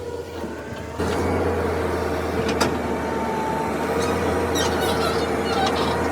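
JCB 3DX backhoe loader's diesel engine running under work, getting louder about a second in and holding there. A single sharp click about two and a half seconds in.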